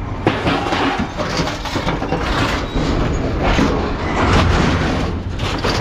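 Scrap metal rotors being thrown onto a scrap pile, clanking and scraping against other metal in a run of irregular knocks, over a steady low engine rumble.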